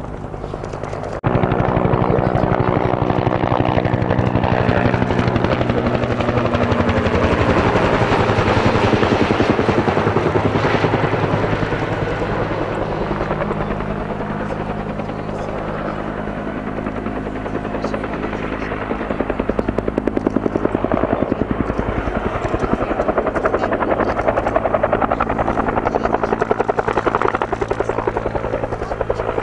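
Bell UH-1 helicopter flying low past, its two-blade main rotor beating in a fast, even chop over a steady engine hum. It starts suddenly about a second in, eases slightly midway and grows louder again near the end.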